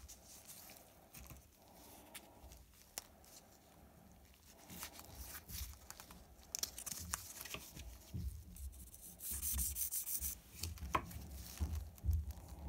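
An old Victorinox pocket knife being polished and sanded by hand, with uneven rubbing strokes and a few small clicks, growing harsher and hissier about nine to ten seconds in.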